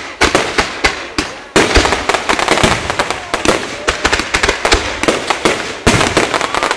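Aerial fireworks display: a dense rapid crackling from crackle-effect shells, broken by fresh volleys of bangs about a second and a half in and again near the end.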